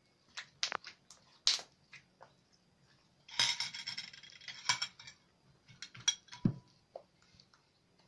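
Homemade glue-and-borax slime being stretched, kneaded and pressed by hand in a glass bowl: scattered sticky clicks and pops, with a dense crackling run about three and a half seconds in.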